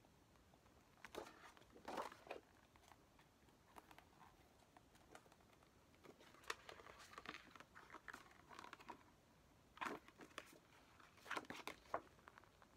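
Faint, intermittent rustling and crinkling of paper as album photos and posters are handled and turned, in short clusters with quiet gaps between them.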